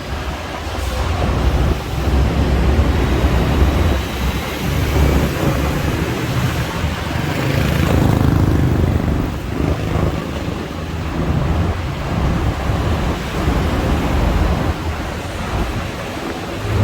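Road traffic noise: a continuous low rumble of engines and tyres that swells about halfway through.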